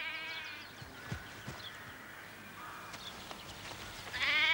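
Sheep bleating: a faint wavering bleat at the start, and a loud quavering bleat about four seconds in that runs on past the end.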